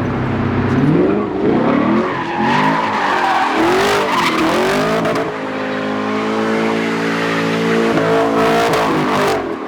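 A car's engine revving up and down hard, then held at high revs, with tyres skidding and squealing as the car slides and spins donuts.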